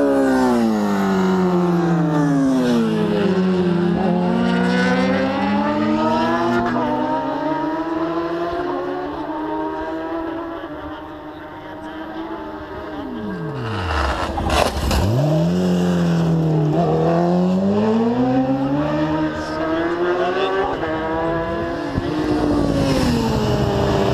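Superbike race motorcycles at full racing pace passing one after another. The engine notes fall and rise in pitch, and about halfway through one bike goes by close, its note dropping sharply as it passes.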